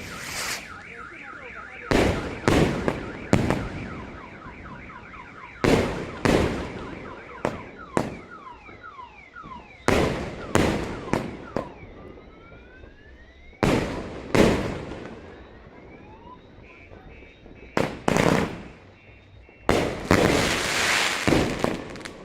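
Consumer fireworks going off in a long volley of sharp bangs, a few seconds apart and sometimes in quick pairs, each with an echoing tail. Between the bangs come rising and falling whistles. A fast warbling, siren-like run sounds in the first few seconds.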